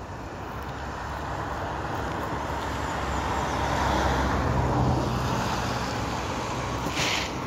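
Low engine rumble that swells to a peak about halfway through, with a steady hum at its loudest, then eases; a short hiss near the end.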